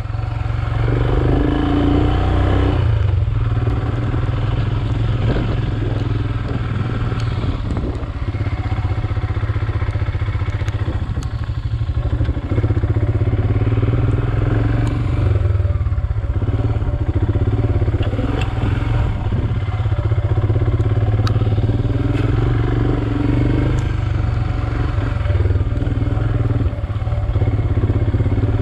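Royal Enfield Himalayan's single-cylinder engine running steadily as the motorcycle is ridden, with scattered clatter and knocks.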